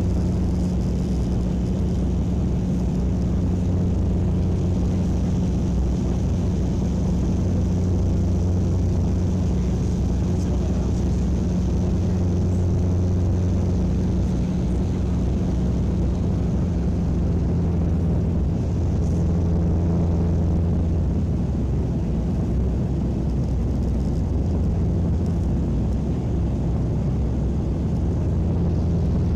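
A steady, unchanging low mechanical drone, like a large engine running, with a strong deep hum.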